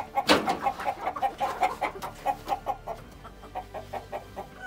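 Domestic hen clucking in a quick, even run of short clucks, about four a second, growing fainter toward the end. A single sharp knock sounds just after the start.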